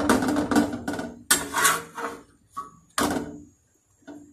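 Slotted spatula working flatbread on an iron tawa, in a few scraping strokes that each start sharply, three of them strong and a couple lighter.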